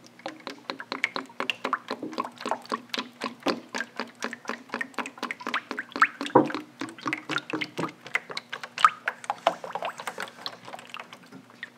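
Raw linseed oil poured in a stream into a plastic tray, splashing and glugging as it pools: a quick, irregular run of small splashes throughout.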